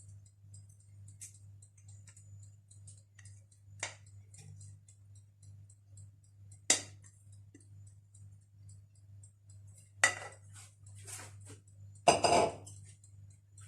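Metal cake mould and kitchen utensils clinking and knocking on a countertop: scattered small ticks, a few single sharp knocks, and a busier clatter near the end, over a faint steady hum.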